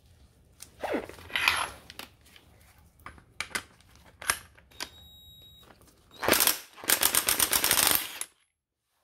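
Electric impact wrench hammering in a rapid run for about two seconds near the end, driving a flywheel puller to pop the flywheel off a Honda Dio scooter's crankshaft. Before that come scattered knocks and clatter of tools being set up.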